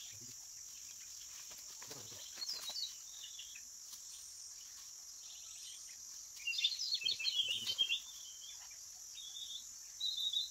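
Steady, high-pitched chorus of insects, with a bird calling in quick chirpy bursts several times. The longest and loudest burst comes about six to eight seconds in.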